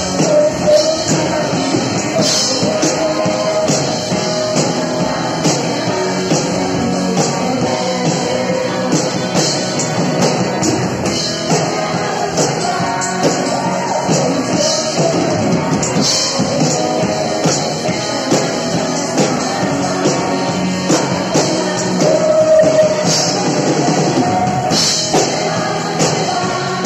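Live worship band playing a song: a woman singing lead into a microphone over a drum kit with regularly struck cymbals and an electric guitar.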